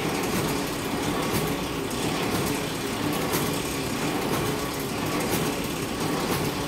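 Brehmer 381/3 E-4 book sewing machine running: a steady mechanical whir with a light regular clack about once a second as it cycles.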